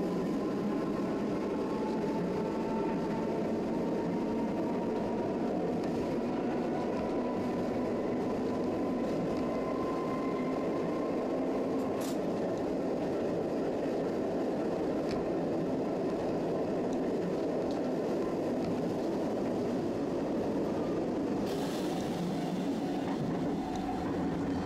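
Tosaden streetcar running at speed, heard from inside the car: a steady rumble of wheels and running gear with a faint whine that rises slowly in pitch over the first half. A brief hiss comes in near the end.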